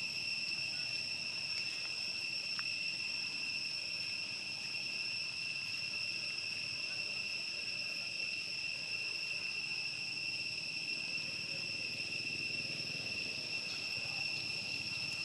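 Steady, high-pitched insect drone: one unbroken whine with an overtone above it, holding at an even pitch and level throughout.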